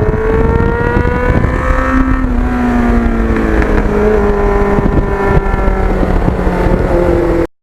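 Kawasaki GPX750R's inline-four engine running on the road, its pitch falling slowly, with heavy wind rumble on the microphone.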